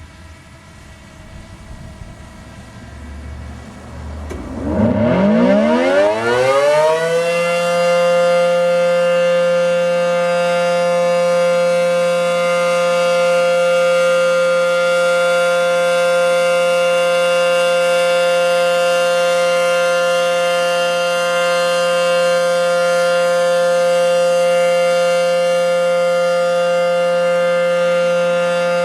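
ACA P-10 outdoor warning siren winding up and sounding its steady alert signal for a test. A low rumble opens; about four seconds in the pitch climbs steeply, and by about seven seconds it settles into a loud, steady tone.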